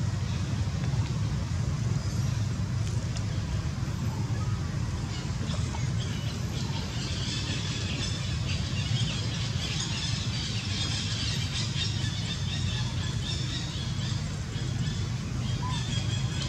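Outdoor ambience: a steady low rumble, with high chirping calls coming in about five seconds in and fading back out a few seconds before the end.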